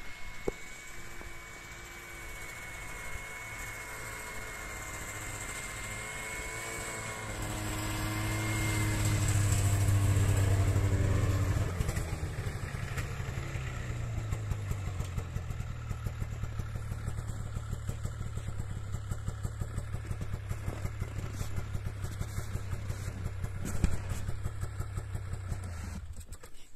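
Snowmobile engine drawing near and growing louder to a peak about ten seconds in, its pitch falling. It then runs steadily at a lower note and cuts off suddenly at the end.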